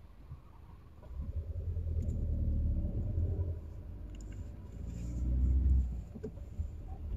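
Car engine and road rumble heard from inside the cabin as the car pulls away and drives on, rising about a second in and swelling again near the end.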